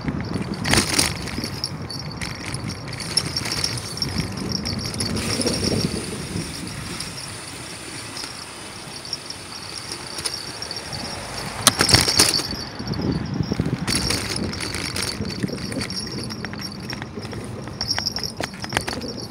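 Bicycle rattling and clattering as it rolls over the road, under a steady rushing noise; a louder burst of clatter comes about twelve seconds in.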